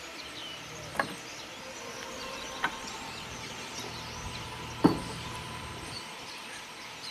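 Three sharp knocks over a steady outdoor hiss, the loudest about five seconds in: a freshly caught small black bass flopping and landing on a dry dirt bank.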